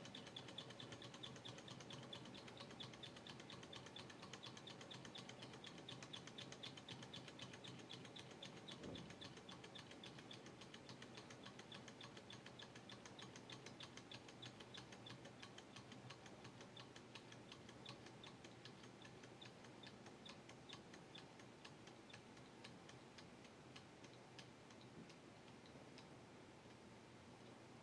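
Robart model Stirling hot-air engine running on the leftover heat in its glass hot cylinder with the alcohol lamp removed: a faint, fast, even mechanical ticking that grows gradually quieter as the engine cools.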